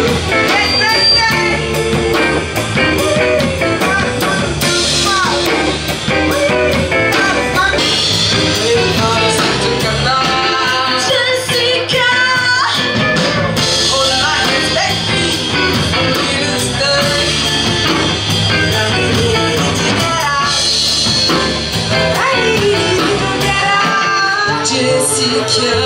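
Live garage-funk band playing: electric guitars and bass with a woman singing lead over them.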